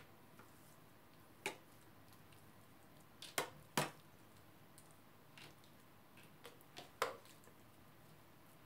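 Metal spoon tapping and clinking against a springform cake ring while mayonnaise salad is spread and levelled inside it: about half a dozen scattered sharp clicks, the loudest pair a little past three seconds in.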